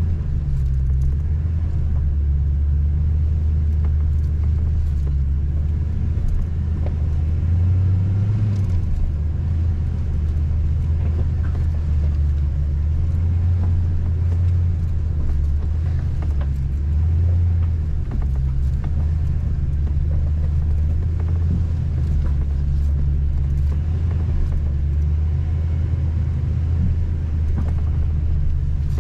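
Toyota Tundra pickup driving on a rough off-road trail: a steady low rumble of engine and drivetrain, swelling briefly a couple of times, with faint scattered clicks and knocks.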